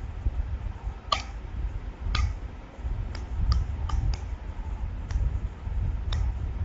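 Irregular sharp clicks at a computer, about eight in all with a quick cluster midway, over a steady low rumble of microphone noise.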